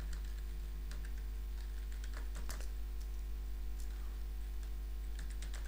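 Computer keyboard keys clicking as a terminal command is typed: scattered single keystrokes with pauses between, then a quick run of several near the end. A steady low hum runs underneath.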